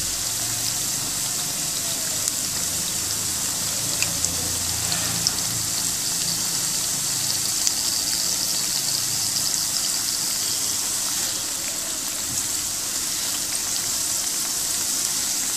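Pakoras deep-frying in hot oil in a karai: a steady sizzle with scattered small crackles.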